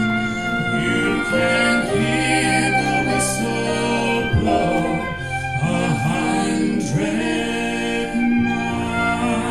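Folk band with several singers holding long harmonized notes over acoustic instruments.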